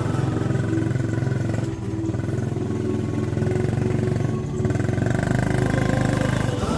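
Small motorcycle engine running under load on a rough off-road climb, its note changing abruptly about two and four and a half seconds in.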